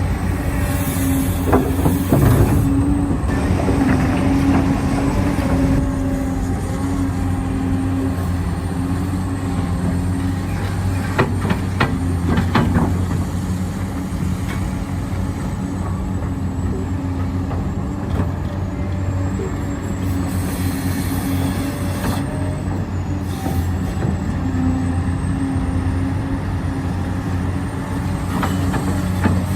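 Electric motors and gearboxes of 1:14 scale HUINA RC construction machines whirring steadily, the whine shifting a little in pitch as they work, with a few sharp clicks about eleven to thirteen seconds in.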